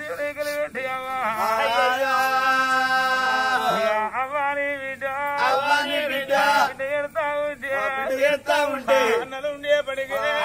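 Man singing in Oggu Katha folk-narrative style, with one long held note about two seconds in, over a steady drone.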